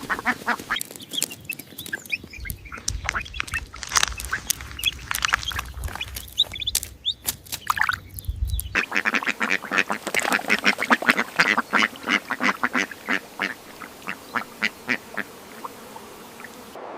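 Ducks quacking in quick repeated runs of calls. The background changes about nine seconds in, and the quacking goes on in rapid series after it.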